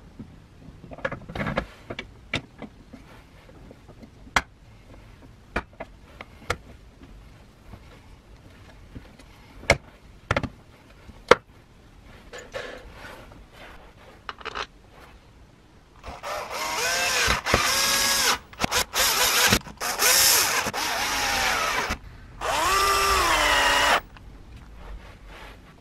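Scattered clicks and knocks of parts being fitted together, then a power screwdriver driving screws into the planer's plastic housing in several runs, its motor pitch rising and falling as each run starts and stops.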